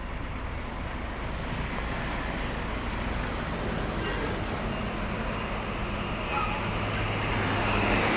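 MAN TGS 40.440 tractor unit's diesel engine idling with a steady low rumble. It grows gradually louder.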